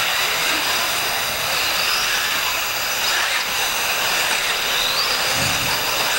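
A pack of 1/8-scale electric off-road buggies racing on a dirt track: the high, steady whine of their brushless motors and drivetrains, with a faint rising whine of a car accelerating now and then.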